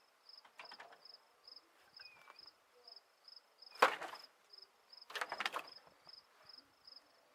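Cricket chirping in a steady, even pulse of about three chirps a second. Two louder, short bursts of scuffling noise come about four and five seconds in.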